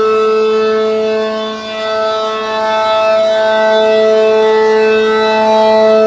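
ACA Allertor 125 rotating electromechanical siren with an 8/12-port chopper, sounding a loud steady tone. The sound swells and fades as the head turns, dipping most around two seconds in.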